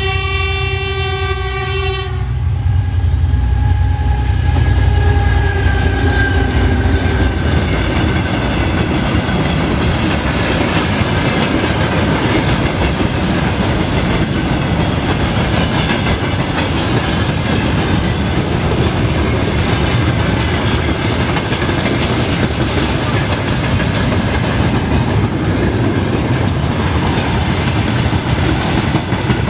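A train horn sounds for about the first two seconds, then the train runs on with the steady clatter of carriage wheels on the rail joints.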